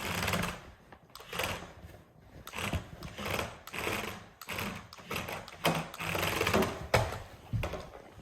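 Toy remote control car's electric motor whirring in short repeated bursts, about one a second, as the car is driven and stunted, with a few sharp clicks and knocks in between.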